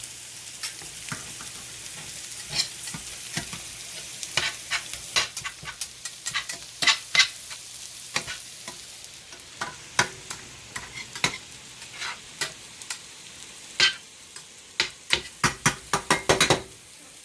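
Thin-shaved ribeye and onions sizzling in a hot pan, with a utensil clacking and scraping against the pan many times as the food is chopped and stirred; the sizzle softens about halfway through.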